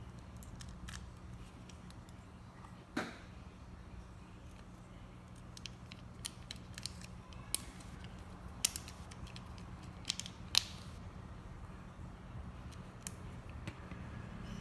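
Small sharp clicks and taps of plastic and metal key-shell parts being handled and fitted together by hand, scattered irregularly, with a short scrape about three seconds in and the loudest clicks between about seven and eleven seconds. A low steady hum runs underneath.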